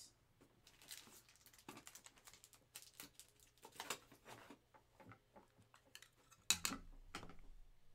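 Faint, irregular light clicking and tapping, with a louder cluster about six and a half seconds in.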